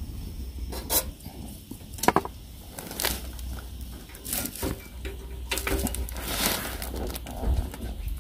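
Scattered metallic clinks and knocks, roughly one a second, from a small stainless-steel camping fire stove being fed with pine cones and handled, over a low rumble of wind on the microphone.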